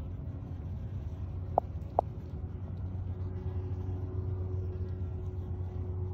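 A steady low mechanical hum with faint steady tones over it, and two short sharp clicks about a second and a half and two seconds in.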